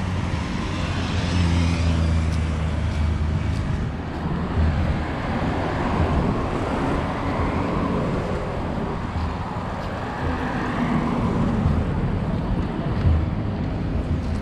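Road traffic on a busy city avenue: a steady wash of car noise with an engine hum in the first few seconds, and several vehicles swelling past one after another.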